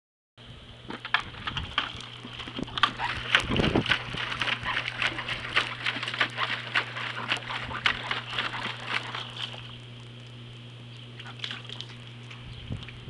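Puppy splashing in water: a fast, irregular run of small splashes and clicks for about eight seconds that then thins out, over a steady low hum.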